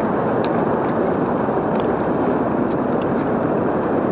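Fast-flowing river water rushing past a concrete ledge: a steady, even roar of current with a few faint ticks over it.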